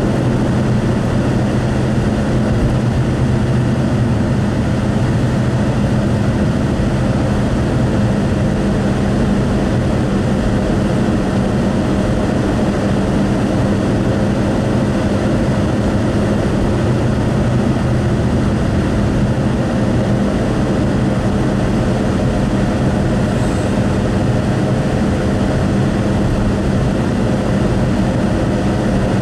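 A car cruising along a highway, heard from inside the cabin: steady road noise from the tyres with a low, even engine hum.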